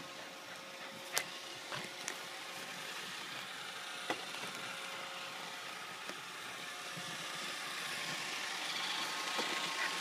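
Roomba robot vacuum running on a hardwood floor, a steady hum of its motor and brushes with a few sharp knocks in the first half. It grows louder toward the end.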